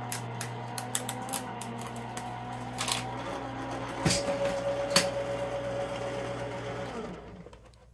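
Electric Gemini Pro die-cutting machine running as the plate sandwich feeds through its rollers: a steady motor hum with scattered clicks, its note shifting about four seconds in, then it stops about seven seconds in.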